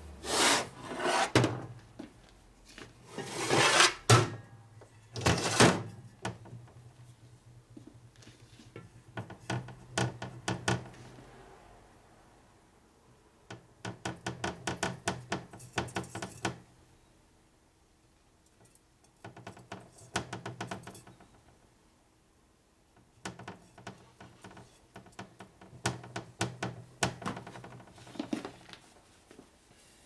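Shovelhead engine parts handled on a workbench: clunks, knocks and rattles as an aluminium crankcase half is picked up and fitted over the freshly lubed flywheel assembly. The loudest knocks come in the first few seconds, and quicker rattling clusters follow at intervals.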